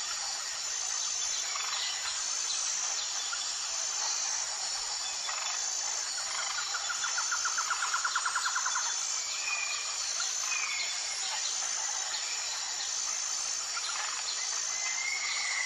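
Steady hiss of ambient background sound with a few short bird-like chirps and a rapid insect-like trill lasting about two seconds midway.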